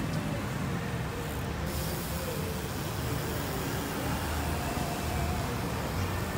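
Steady street traffic noise with a low, fluctuating rumble.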